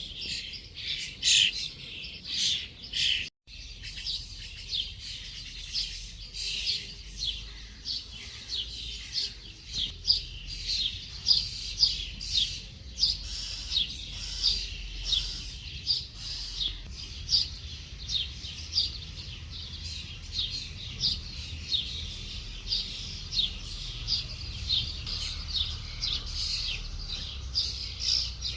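Songbirds chirping: a steady stream of short, high, downward-sliding notes, several a second, with a faint low rumble underneath. The sound drops out for an instant about three seconds in.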